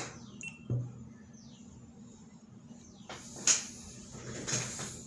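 A few light knocks and clinks: a dull thump, then two sharper clinks with a short ring, over a faint low hum.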